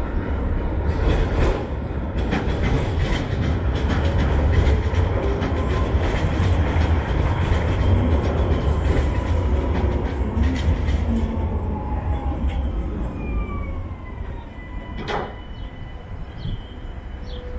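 Low-floor electric tram on city track running past close by: a low rumble with a run of clicks and clacks from the wheels on the rails. The rumble eases after about twelve seconds, with a falling whine and a single sharp click near the end.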